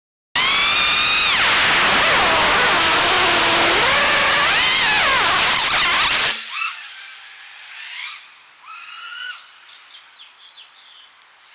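FPV quadcopter's brushless motors and propellers whining, the pitch sweeping up and down with the throttle. The sound starts suddenly and is loud for about six seconds, then drops to a quieter stretch of short rising-and-falling whines.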